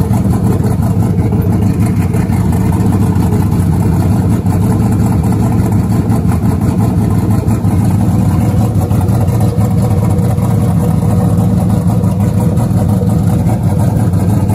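Chevrolet pickup truck's engine idling steadily with the hood open, a loud, even running sound with no revving.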